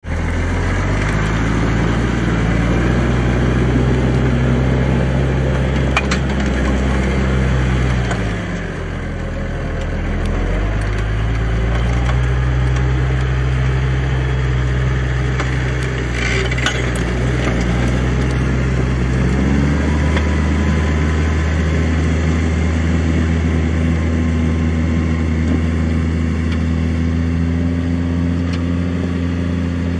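Large farm tractor's diesel engine running, its note dipping and recovering about eight to ten seconds in, then settling to a different steady note a little before twenty seconds, when it is pulling a mounted reversible plough. A couple of brief clicks come over the engine.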